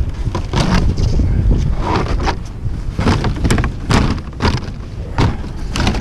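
Strong wind buffeting the microphone with a heavy low rumble, while loose corrugated mobile-home skirting panels clatter and knock again and again, at uneven intervals.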